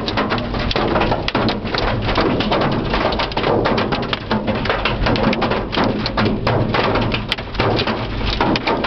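Hail drumming on a car's roof and windshield, a dense, unbroken clatter of hard impacts heard from inside the car.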